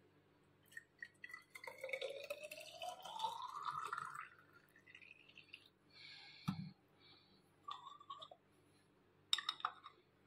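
Watermelon juice poured from a steel pot into a glass bottle, the pour rising in pitch as the bottle fills. A single knock follows about halfway through, and a few sharp clicks come near the end as a screw cap is put on the bottle.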